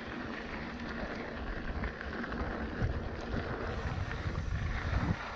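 Wind buffeting a camera microphone on a moving mountain bike, over the steady rumble of the bike rolling along a dirt trail.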